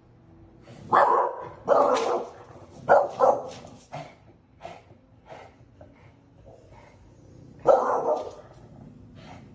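Dog barking at something outside a glass door: a run of loud barks about a second apart in the first three seconds, then another bark about eight seconds in.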